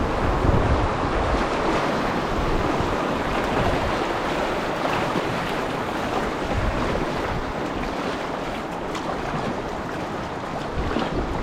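Swift river water rushing and splashing around a packraft floating downriver.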